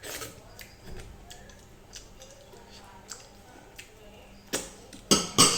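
Close-up eating sounds: soft chewing and small mouth clicks, then three loud, short, noisy mouth sounds near the end.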